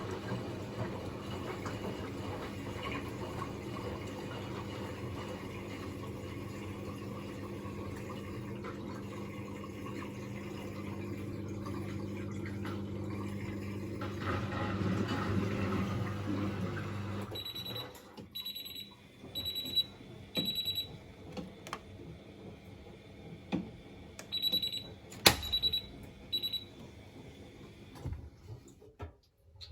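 Washing machine running with a steady hum and rushing water, which stops a little over halfway through. Its control panel then gives two runs of short high electronic beeps, with one sharp click among the second run.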